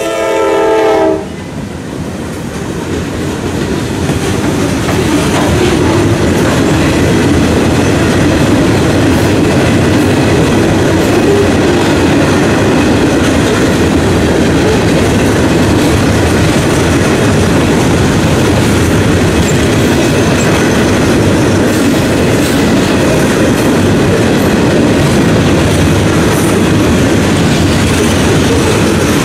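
A locomotive's multi-note horn chord sounds and cuts off about a second in. A freight train of flatcars loaded with steel coils then rolls past, its wheels clattering steadily on the rails and growing louder over the next few seconds.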